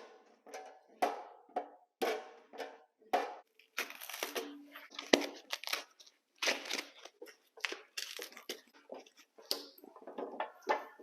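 Cardboard box and packing material being handled and torn open: irregular crinkling, tearing and scraping with a few sharp knocks.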